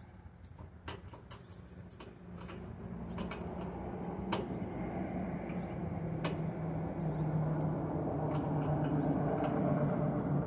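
Ratchet wrench clicking in short irregular runs as a loose bolt is tightened. Under it, a low hum grows steadily louder from about two seconds in.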